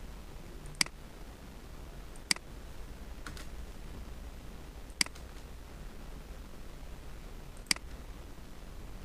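Computer mouse clicks and keystrokes while editing code: four sharp single clicks spaced one to three seconds apart, with a fainter pair in between, over a steady low hum.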